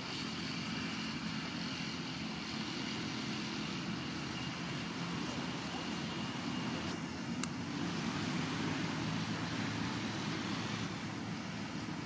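Steady low engine-like hum, as of a motor vehicle running, with one sharp click about seven and a half seconds in.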